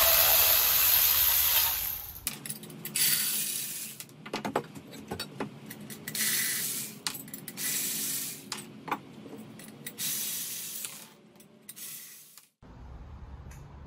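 Sped-up run of a Milwaukee cordless power tool spinning the nuts off fire-pit leg bolts: about five short high whirring runs, the first and longest at the start, with metallic clicks and clinks of nuts and bolts in between.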